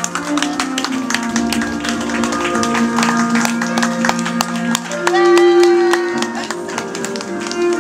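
Background music: a gentle pop song with plucked guitar, with a rising held note about five seconds in.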